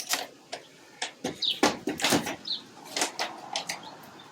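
Handling noise: a string of sharp knocks and scrapes, several a second apart, with a couple of short high squeaks.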